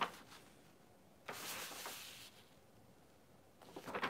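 Small plastic clicks from handling a Transformers toy figure, with a soft rustle of its paper instruction sheet for about a second near the middle and a few more clicks near the end.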